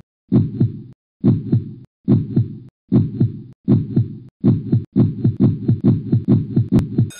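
Heartbeat sound effect: low double thumps about once a second that quicken sharply over the last two seconds, with one sharp click near the end.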